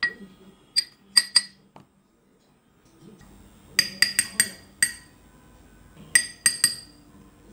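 Steel spoon clinking against the rim of a small bowl, tapped to knock salt and spice powder into it, each tap ringing brightly. A few clinks come in the first second and a half, a quick run of about five around four seconds in, and three more near the end.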